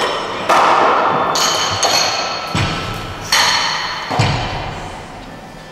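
Loaders changing plates on a weightlifting barbell: about six metal clanks and knocks, each ringing briefly, as 25 kg plates and collars are worked on and off the bar sleeves. They come roughly a second apart and die away near the end.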